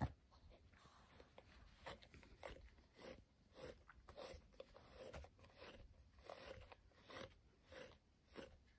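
Faint, repeated crunching, a short stroke about every half second to second.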